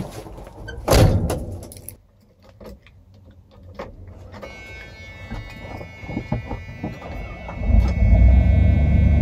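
A heavy door thump, then keys jingling; a steady buzz comes on and the starter cranks. Near the end the 1981 Dodge Ram 150's 318 V8 catches and runs loud through its exhaust with the muffler removed.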